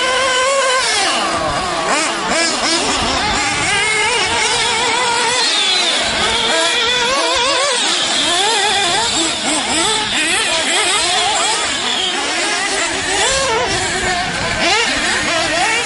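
Several radio-controlled off-road cars racing, their high-pitched motors revving up and down over one another.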